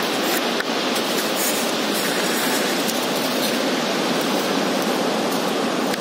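Ocean surf breaking and washing up a sandy beach: a loud, steady rush of waves.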